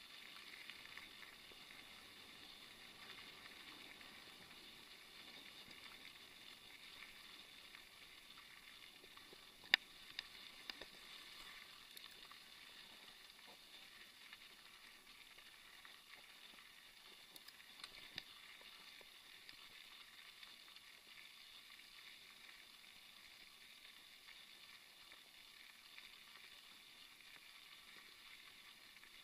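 Mountain bike tyres rolling over a gravel track, a faint steady hiss, with a sharp click about ten seconds in, a couple of smaller ones just after, and another around eighteen seconds.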